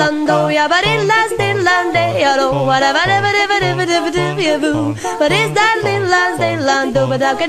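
Music: a fast, yodel-like vocal song sung in rapid nonsense syllables, with quick pitch leaps, over a bass line that bounces about twice a second.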